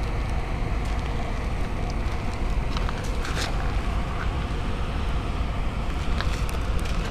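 Paper folder burning in a metal butt can, with a few sharp crackles over a steady low rumble.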